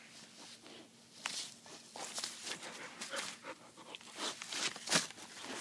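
Akita puppy nuzzling and mouthing its plush toy right at the microphone: scratchy rustles and clicks of fur, mouth and paws, growing busier after about a second, with a sharp click about five seconds in.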